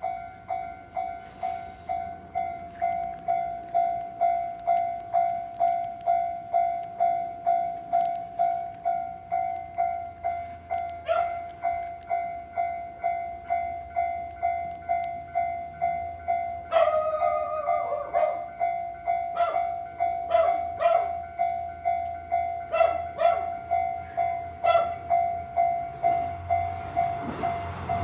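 Japanese level crossing's electronic warning bell ringing steadily at about two strikes a second, signalling an approaching train. In the last couple of seconds a low rumble of the approaching train builds beneath it.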